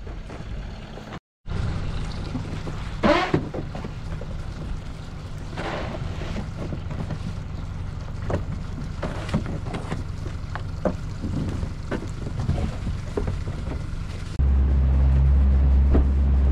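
Boat engine idling steadily, with scattered clunks and knocks of gear being handled and loaded aboard. The sound drops out for a moment about a second in. Near the end a louder, deeper engine drone takes over.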